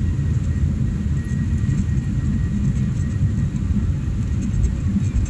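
Steady low rumble inside an airliner's cabin as the jet taxis and turns onto the runway just before its takeoff roll, with a faint steady high whine above it.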